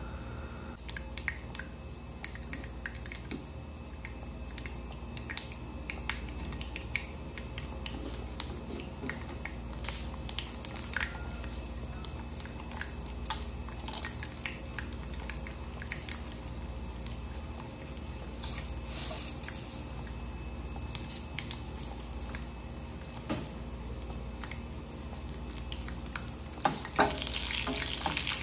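Cumin seeds crackling in hot oil for a tadka: scattered sharp pops over a steady sizzle. Near the end the sizzle grows louder and denser as garlic, dried red chillies and curry leaves are stirred in the pan with a wooden spatula.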